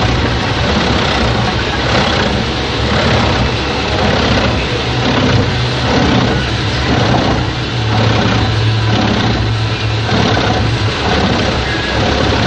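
Mus-Max Terminator 10 wood chipper running, a continuous loud mechanical noise over a steady low hum, with a surge in the sound repeating about once a second.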